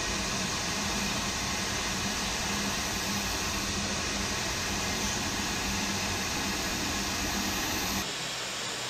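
Steady hiss of steam from a standing narrow-gauge steam locomotive, with a faint low hum under it; it drops to a quieter hiss near the end.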